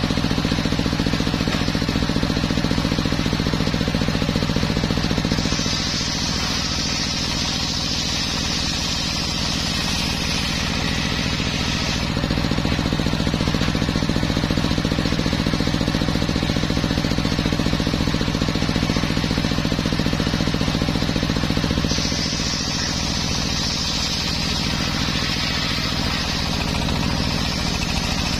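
Homemade circular sawmill running steadily with a low machine drone, its blade cutting through teak timber twice, each cut adding a high hissing whine: about five seconds in for some seven seconds, and again from about twenty-two seconds until near the end.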